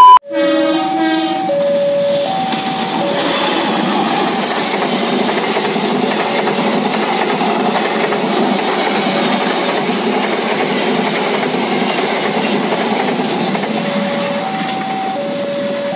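Passenger train coaches running past at close range: a steady rumble and rush of wheels on rail that fades only slightly near the end. Over it, a level-crossing warning signal sounds as a repeating two-note electronic chime, clear at the start and again near the end.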